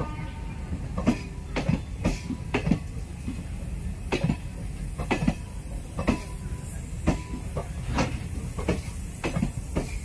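Indian Railways ICF sleeper coaches rolling past on the adjacent track. Steel wheels clack over the rail joints about twice a second, unevenly spaced, over a steady low rumble.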